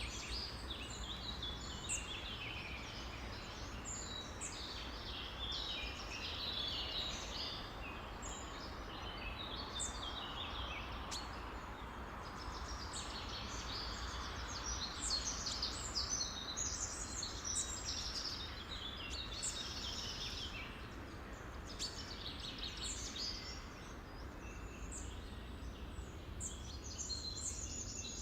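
A dense chorus of many songbirds calling at once, overlapping chirps and quick trills, over a steady low background hum.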